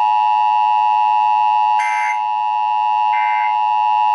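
Emergency Alert System tones: a steady two-tone attention signal, with short buzzing digital data bursts about 1.3 seconds apart.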